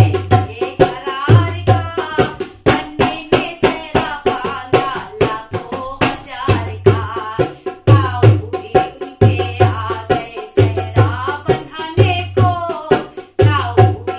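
Dholak played with both hands in a steady folk rhythm, sharp strokes with deep bass strokes recurring, under a woman singing a Hindi sehra wedding song.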